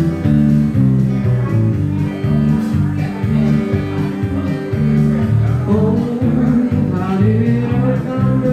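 Live acoustic duo playing a song through PA speakers: strummed guitar over stepping bass notes, with a man's voice singing held, sliding notes in the second half.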